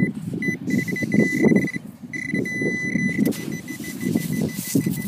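Metal detector giving a steady high electronic tone in on-and-off stretches over a 20-cent coin, fading to a fainter tone after about three seconds, over rustling and scraping of sand as a gloved hand digs the coin out.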